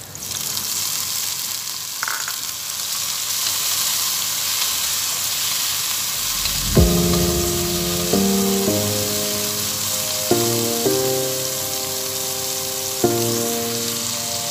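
Sizzling as chopped tomatoes sauté with garlic, onion and ginger in hot olive oil, a steady frying hiss. About seven seconds in, background music with sustained chords comes in over it.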